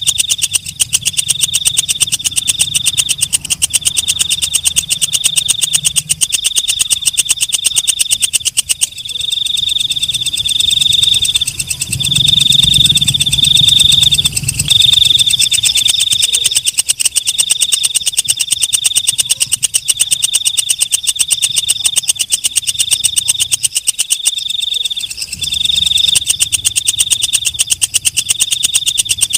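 Walang kecek, a green leaf-winged katydid, calling: a fast, steady train of dry ticks under a shrill buzz that pulses about once a second. A low rumble swells underneath about twelve seconds in.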